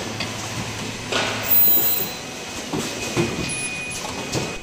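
Automatic cup mask (disposable respirator) production machine running, with clattering and clicking from its conveyors and pneumatic stations, a faint steady high whine, and a louder rush of noise about a second in.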